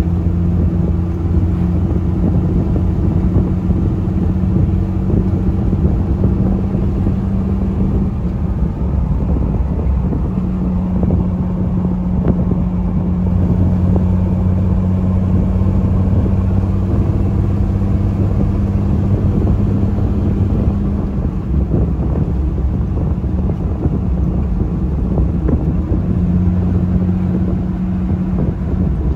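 A 2006 Jeep Wrangler's 4.0-litre inline-six, its exhaust cut to make it louder, drones steadily while cruising at highway speed around 2,000 rpm, heard from inside the cab with tyre and wind noise under it.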